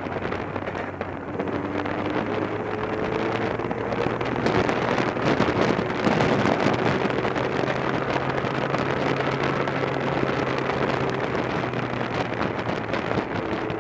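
Motorcycle engine running, its pitch climbing slowly a few times, under heavy wind noise on the microphone.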